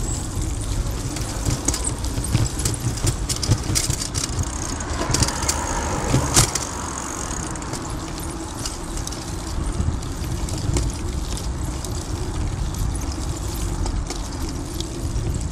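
Bicycle rolling along a paved pavement: a constant low rumble with frequent rattling clicks from the ride over the paving. Near the middle there is a louder swell ending in a sharp click about six seconds in.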